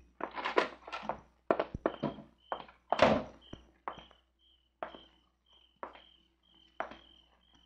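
Radio-drama sound effects of a night walk: a run of uneven thunks and footsteps, the loudest about three seconds in, with crickets chirping steadily from about two and a half seconds on.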